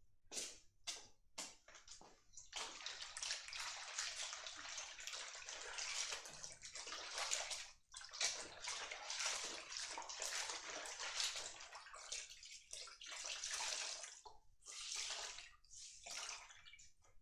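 Water sloshing and splashing as a hand washes something in a stainless steel basin: a few short splashes at first, then steady sloshing for most of the time with a couple of brief pauses.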